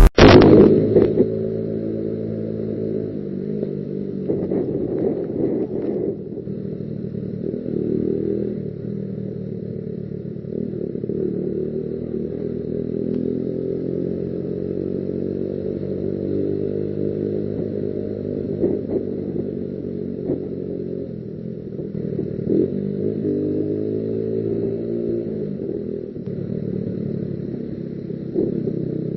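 Motorcycle engine running while riding, its pitch rising and falling with throttle and gear changes.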